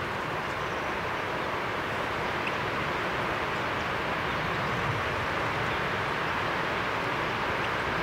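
Steady rushing noise with no distinct events, even and unchanging throughout.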